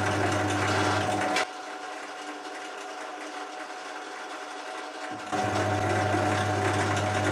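Foreman SM13 bench drill press running with a steady electric hum. It is switched off about a second and a half in, and only a faint run-down is left. It is switched on again about five seconds in. The hum is partly the wooden table under it resonating; the owner says the press itself runs very quietly.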